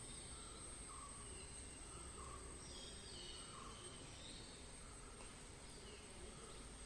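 Faint forest ambience: birds giving short repeated calls, over a steady high-pitched insect drone.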